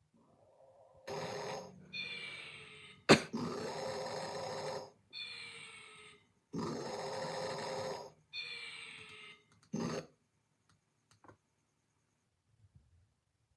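Snoring: three rasping snore breaths, each followed by a shorter whistling breath that falls in pitch, with a sharp click about three seconds in.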